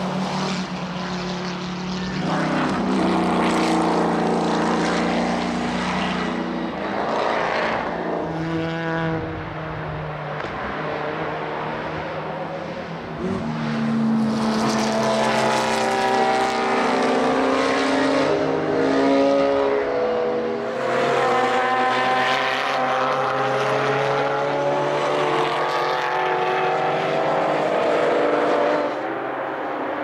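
Several racing cars' engines passing one after another at racing speed, the pitch climbing and dropping as they change gear. The sound is loudest in the second half.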